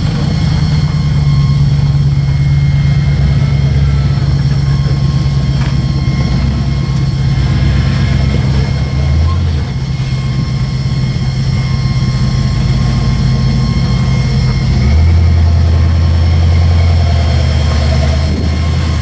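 Modified Jeep rock crawler's engine running at low crawling speed as the rig climbs over boulders; its steady low note drops to a deeper pitch about fifteen seconds in.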